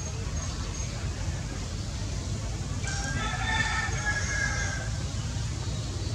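A rooster crowing once, a single call of about two seconds starting about three seconds in, over a steady low rumble.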